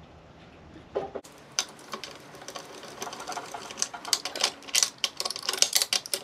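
Rapid metallic clicking and rattling of a hand tool working among the steel gears and aluminium case of a Honda Prelude manual transmission. A single knock about a second in, then fast clicks that grow louder and busier toward the end.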